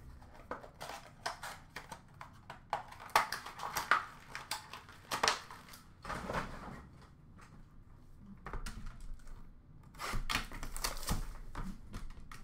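Irregular clicks, taps and rustling of hands handling cardboard hobby boxes and plastic card holders on a counter, with busier stretches a few seconds in and near the end.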